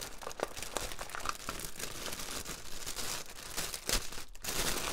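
Plastic crinkling and rustling as small zip bags of diamond-painting drills are handled and rolled up inside a clear plastic sleeve, with a louder crackle about four seconds in.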